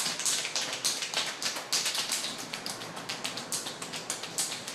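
Hands massaging oiled skin: a quick, irregular run of wet taps and smacks as the palms work over the slick body.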